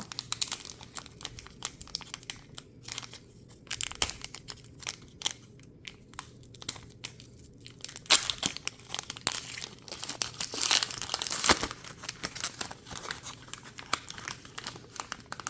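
Foil Pokémon TCG booster pack wrapper crinkling and being torn open, as a run of sharp crackles that get busiest and loudest past the middle.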